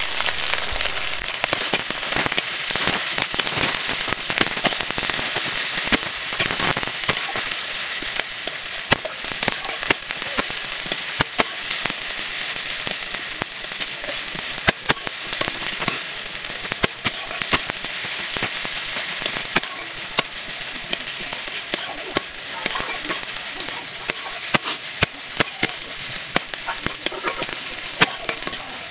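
Sliced onion, garlic, ginger and slit green chillies frying in hot mustard oil in a steel karai: a steady sizzle broken by many sharp crackles and pops, while a steel spatula stirs them around the pan.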